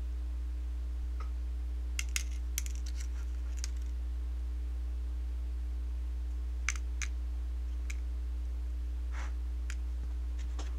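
Light, scattered clicks and ticks of small metal airsoft gearbox shims and parts being picked through and handled, coming in small clusters. Under them runs a steady low electrical hum.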